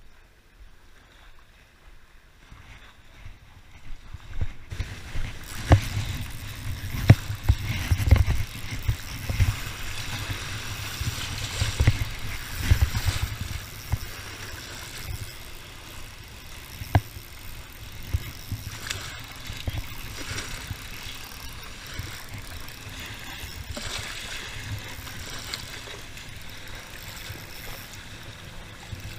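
Wind buffeting the microphone in uneven low thumps, over small waves lapping and splashing against shoreline rocks; it starts about five seconds in and is strongest for the next ten seconds or so.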